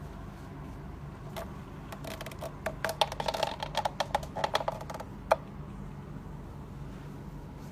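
A fast, irregular run of small sharp clicks and taps, bunched in the middle with one louder click near the end, over a steady low hum.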